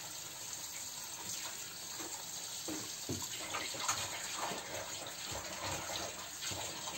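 Kitchen tap running steadily into the sink, with a few light knocks in the middle.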